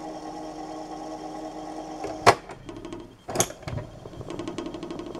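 Cassette transport of a Panasonic RX-1450 boombox winding the tape at speed: a steady motor whir with a fast ticking. About two seconds in a loud clunk from the piano keys breaks it, then a second clunk about a second later, and the mechanism whirs again briefly before it drops away near the end.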